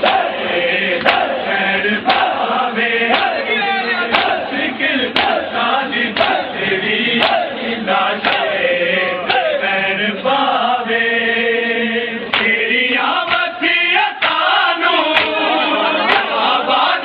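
A crowd of Shia mourners performing matam: many men's voices chanting a lament together while sharp chest-beating slaps land in unison about once a second. Around the middle the voices hold one long note.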